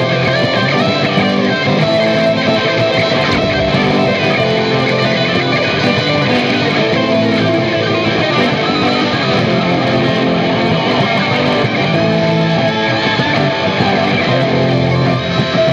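Guitar played at high speed: a fast run of rapid notes with no break.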